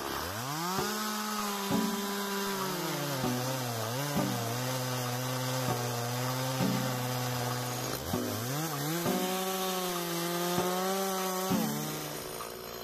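Stihl petrol chainsaw revving up to full throttle and cutting into a tree trunk, its engine note sagging and recovering as the chain bites into the wood. About eight seconds in it drops back briefly and revs up again, then eases off near the end.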